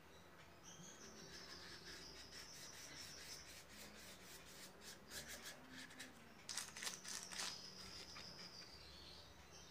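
Small paintbrush dabbing and scrubbing paint onto a painting board in short scratchy strokes, loudest a little past halfway. A faint high whine, slowly dropping in pitch, comes and goes beneath it.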